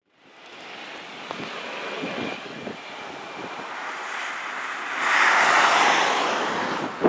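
Jet airliner passing on its landing approach, its engine noise building to a peak about five seconds in, with a faint high engine whine earlier and wind buffeting the microphone.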